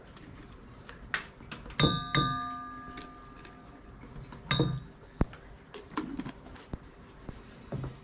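A spatula knocks twice on a stainless steel mixing bowl while scooping mayonnaise, near two seconds in and again near four and a half. The bowl rings on for about a second after each knock, with softer clicks and scrapes in between.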